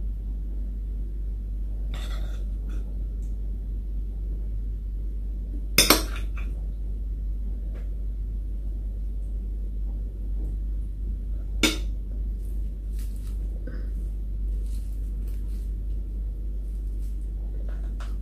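Metal spoon clinking and scraping against a ceramic bowl and plate as food is scooped: a few sharp clinks, the loudest about six seconds in and another near twelve seconds, with fainter ticks between, over a steady low hum.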